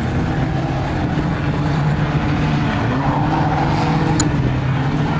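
Banger-racing cars' engines running as they lap the oval track, a steady drone with one engine climbing in pitch about three seconds in as it accelerates. A brief sharp click comes just after four seconds.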